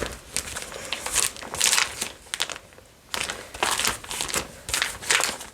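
Pokémon cards being handled and shown one after another: a quick, irregular run of short, sharp rustles and scrapes, several a second.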